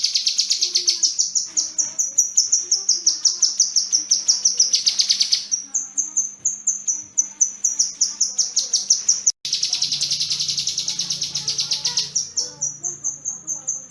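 Kinoi songbird singing long rapid runs of high, sharp repeated notes, about seven a second, pausing and restarting, with a momentary break about nine seconds in.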